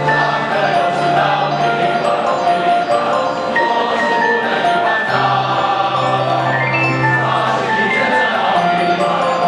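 A choir of students singing the school song in unison with instrumental accompaniment, holding long sustained notes.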